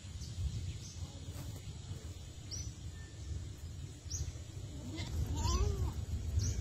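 Small birds giving short, high chirps every second or so over a steady low rumble, and about five seconds in an animal call, the start of a goat bleating.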